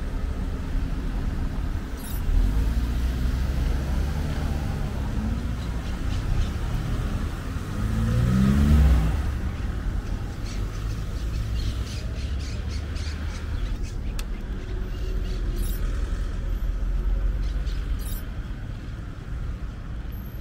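Street traffic: a low steady rumble of passing cars, with one car accelerating past about eight seconds in, its engine pitch rising.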